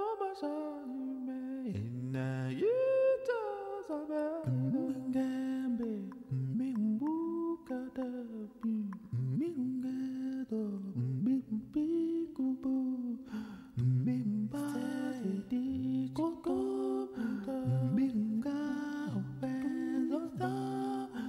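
A voice humming a slow, wordless melody, its pitch gliding between long held notes.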